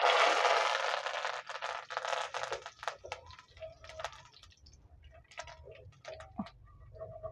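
Fresh curry leaves dipped into hot oil in a clay pot start sizzling loudly at once. The sizzle dies down over about three seconds into scattered crackles and pops as the leaves fry.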